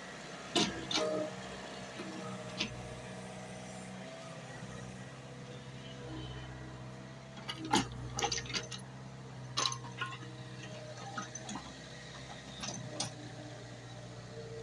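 JCB excavator engine running steadily, with scattered sharp knocks and clicks, most of them bunched together about eight to ten seconds in.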